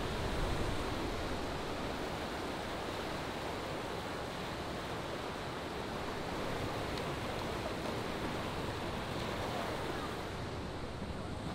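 River rapids rushing over boulders: a steady rush of water.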